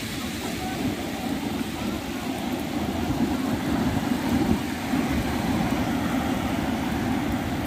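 Sea surf washing in over flat sand: a steady, rushing wash with no distinct breaks.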